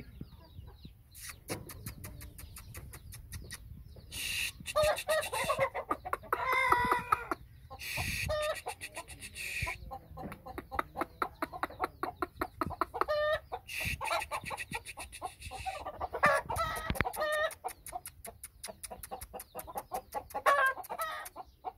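Aseel chickens clucking: quick runs of short clucks, broken by several longer, drawn-out calls.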